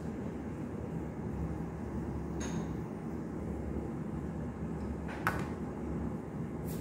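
Steady low rumble of kitchen background noise. A small ringing clink comes about two and a half seconds in, and a sharper knock a little after five seconds, likely from the pastry brush, oil jar or metal tray being handled.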